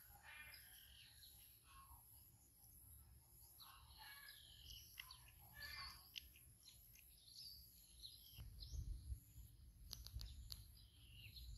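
Faint birds chirping, a scatter of short, varied calls, with a low rumble and a few sharp clicks near the end.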